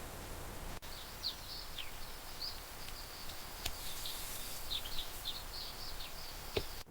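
Small birds chirping in quick, high, repeated calls over a steady background hiss, with a couple of faint clicks.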